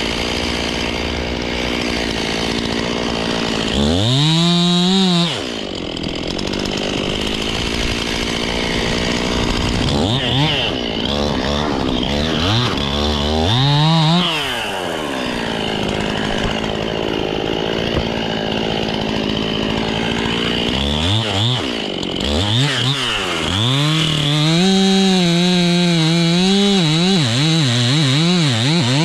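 Two-stroke chainsaw idling and revving up into cuts three times: briefly about four seconds in, again around the middle, and a longer run near the end held at high revs.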